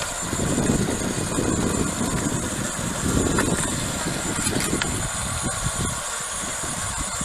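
Ryobi Expand-It battery-powered cultivator attachment running, its tines churning garden soil with an uneven rumble that swells and eases over a steady high whine. The rumble grows lighter toward the end.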